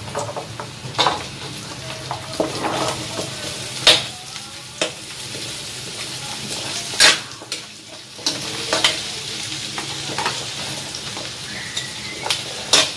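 Cubed squash with garlic and onion sizzling in hot oil in a metal wok, stirred with a metal spatula that scrapes and knocks sharply against the pan every few seconds.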